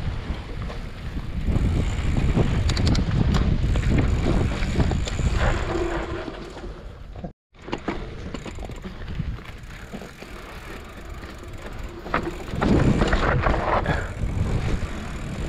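Mountain bike riding a dirt singletrack: rumbling tyre and trail noise with rattles and clicks from the bike, over wind buffeting the microphone. The sound drops out briefly about halfway through, then the riding noise resumes.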